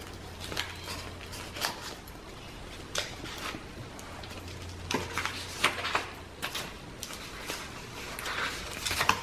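Pages, card and paper doilies of a handmade journal being turned and handled: scattered soft rustles and light taps. A faint low hum runs underneath and stops about three-quarters of the way through.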